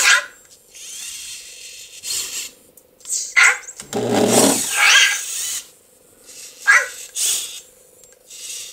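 Anki Cozmo toy robot making its short electronic voice sounds: brief high chirps and a longer, lower pitched sound about four seconds in. Faint whirring from its small motors comes in between.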